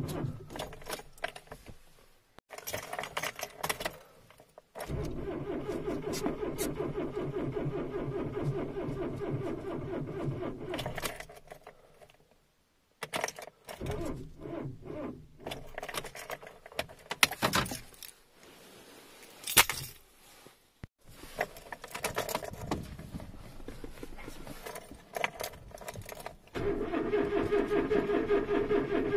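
Kia Sportage starter cranking the cold engine after the winter, in repeated attempts that do not catch: a short burst at the start, a long crank of about six seconds, and another crank near the end. Between attempts the keys jangle in the ignition and there are clicks.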